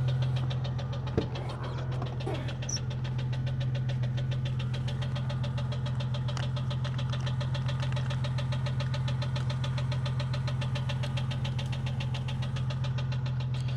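Jeep Cherokee XJ's 4.0 L inline-six idling with a rapid, even ticking knock. The noise persists with new lifters fitted; the owner first took it for failed lifters and says it doesn't sound like rod knock or piston slap.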